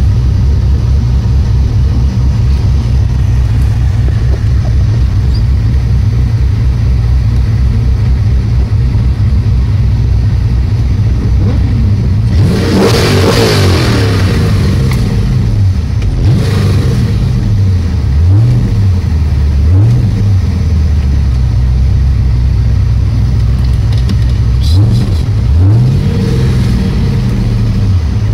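Ultima GTR's engine heard from inside the car, running loud and steady at low revs, with a louder surge about halfway through and several quick revs that rise and fall in the second half.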